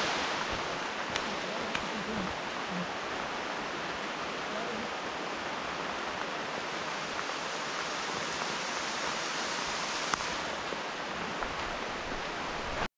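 Steady rushing hiss with a few faint clicks and a sharper tick about ten seconds in.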